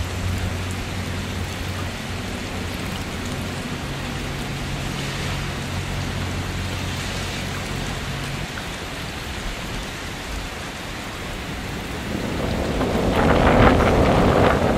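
Steady hiss of rain and floodwater, with a low steady hum that stops about eight seconds in. Near the end the water noise grows louder with irregular splashing as someone wades through thigh-deep floodwater.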